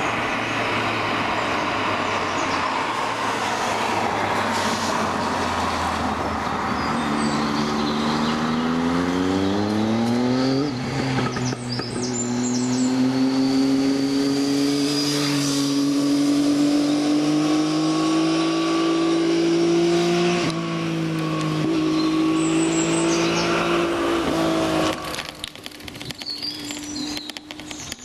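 Traffic on the road: a motor vehicle's engine accelerating, its pitch rising for a few seconds, dropping at a gear change about ten seconds in, then climbing slowly again before fading away near the end.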